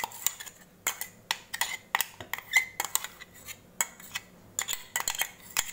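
Metal spoon scraping and clinking inside a stainless steel mixer-grinder jar, scooping thick ground mint-coriander paste out into a steel bowl: irregular sharp clinks and scrapes, several a second.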